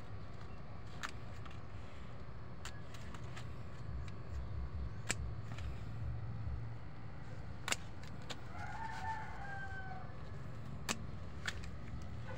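Sharp clicks of pruning shears snipping plant stems and leaves, about six times, with a rooster crowing once, about eight seconds in.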